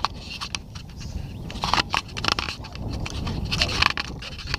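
Lake water slapping against the side of a small riveted metal boat, with scattered clicks and knocks on the hull and an uneven low rumble of wind on the microphone.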